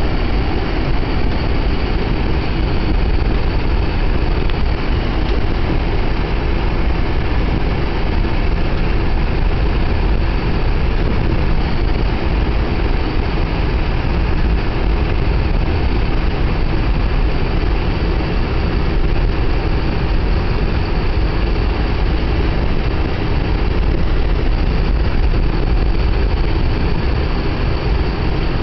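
Steady rumble of a car driving, heard from inside the cabin: engine and tyres on a snow-packed street.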